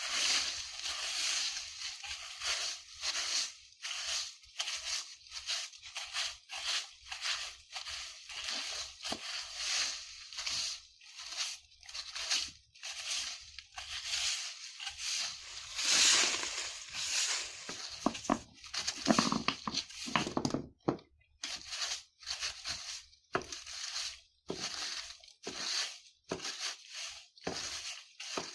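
Broom sweeping dry fallen leaves over the ground, a rustling, crackling stroke about once a second, with a short break about three quarters of the way through.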